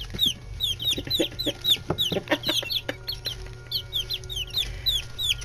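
Nine-day-old chicks peeping continuously: many short, high, falling cheeps, several a second and overlapping, with a few sharp little clicks among them.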